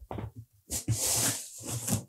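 Cardboard box hat being handled and pulled down over a head, the cardboard scraping and rustling against hair and clothing: a short sound at first, then a longer scrape from under a second in.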